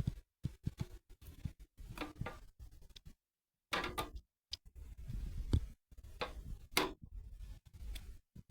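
Irregular static-type crackling: sharp clicks and pops at uneven intervals, broken by short dead-quiet gaps. The uploader says this recorded static has another cause and is not the electrical noise heard from the freshly watered houseplant.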